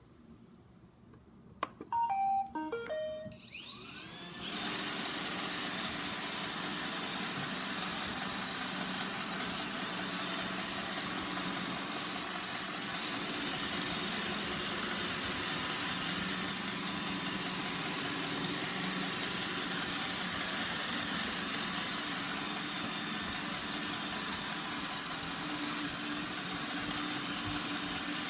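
Roomba 960 robot vacuum playing a short run of electronic beeps of changing pitch, then its vacuum motor and brushes starting up about four seconds in and running steadily as it begins a cleaning cycle.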